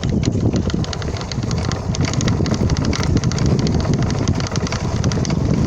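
Dense, rapid clicking and rattling from the front end of a Honda CB650F around the instrument panel, with the engine off. The owner does not know what is causing it.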